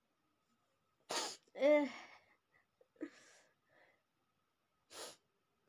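A woman sneezes about a second in: a sharp burst running straight into a falling, voiced cry. Quieter breathy sounds follow, with one short sharp breath near the end.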